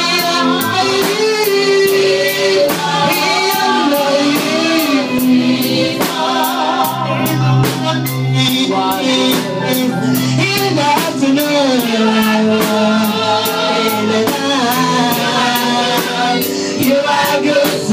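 Gospel praise singing with a band: voices over guitar and a steady drum-kit beat.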